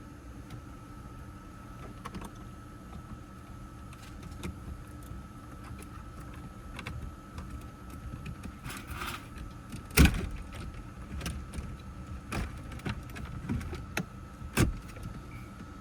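Scattered clicks and knocks from parts and tools being handled during work on a car's interior. The loudest knock comes about ten seconds in and another sharp one near the end, over a faint steady high tone.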